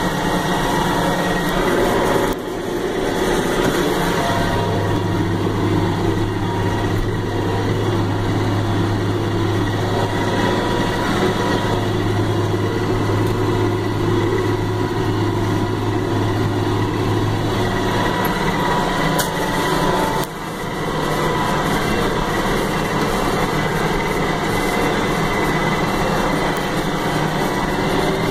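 International Harvester 3788 2+2 tractor's diesel engine running steadily as the tractor drives across the field. In the middle stretch, heard from inside the cab, a deep steady hum stands out. The sound dips briefly twice where the footage cuts.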